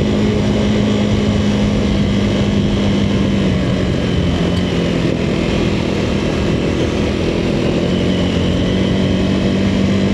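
Motorcycle engine running at a fairly steady pitch while riding off-road, over a constant rushing noise.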